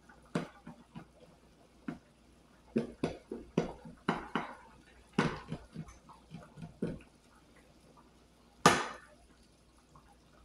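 Plastic slotted spatula stirring ground beef in liquid in a pan, a run of short scrapes, knocks and wet sloshes against the pan for about seven seconds, then one louder knock about nine seconds in.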